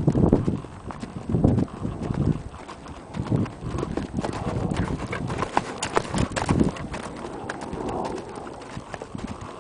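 Hoofbeats of an Anglo-Hispanic mare on dry dirt ground: heavy, irregular thuds that are loud in the first few seconds and grow fainter and more scattered after that.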